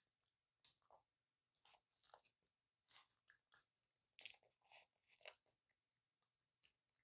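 Faint, irregular chewing and smacking of a raccoon eating grapes: short wet clicks about once or twice a second, loudest a little past four seconds in.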